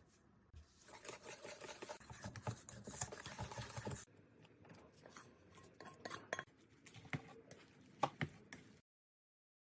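Utensil stirring and clinking in a bowl of fritter batter: a few seconds of dense scraping and stirring, then scattered sharp knocks and clinks against the bowl, cut off suddenly near the end.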